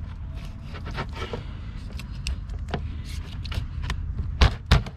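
Large kitchen knife cutting snook steaks on a plastic cooler lid: scattered scrapes and small knocks of the blade through the flesh and bone, then two loud thumps close together near the end as the knife comes down through the backbone onto the lid. A steady low rumble runs underneath.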